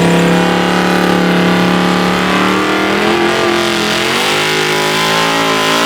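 Drag car engine held at steady high revs, then the revs drop and climb again over the last few seconds.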